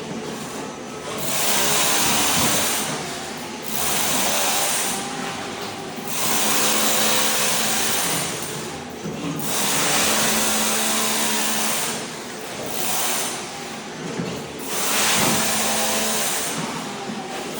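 Ride-on floor scraper running, its blade scraping thin-set mortar off a concrete slab in a harsh grinding hiss that swells and eases every two seconds or so over a steady machine hum.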